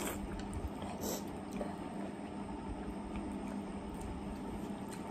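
Quiet slurping and chewing of spicy instant noodles eaten with chopsticks, with a brief hissy slurp about a second in, over a steady low hum.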